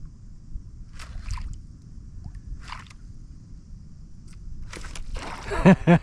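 Low wind and water rumble with two brief splashes, then near the end a man's voice breaks out in quick, loud, excited pulses at about four a second.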